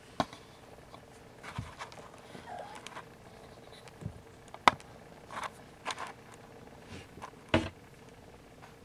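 Kittens scrambling and jostling while they nurse: scattered scuffs, rustles and a few sharp knocks on carpet, the loudest about halfway through.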